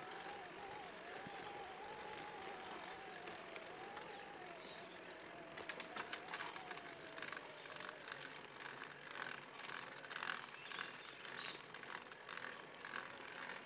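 Recumbent trike in motion: a thin whine that wavers in pitch, typical of the chain rubbing where it runs through a guard, fading out about eight seconds in. From about halfway, fast uneven clicking and rattling takes over.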